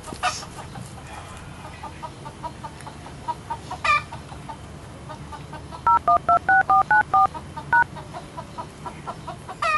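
Mobile phone keypad tones as a number is dialled: about nine quick two-tone beeps, starting about six seconds in. Chickens cluck throughout, with one louder rising squawk about four seconds in.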